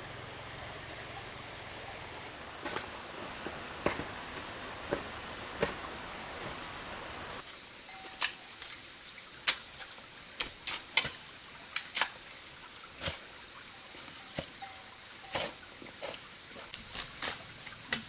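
Hand hoe and shovel striking and scraping into dirt, sharp irregular chops that come more often in the second half, over a steady high drone of insects.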